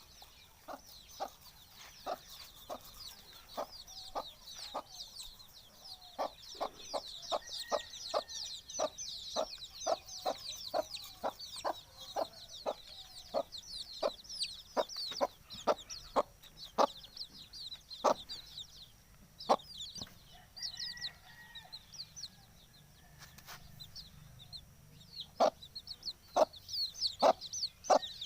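Domestic chickens clucking in short, sharp, repeated calls, about two a second. Behind them runs a dense, rapid high-pitched chirping that stops about two-thirds of the way through and starts again near the end.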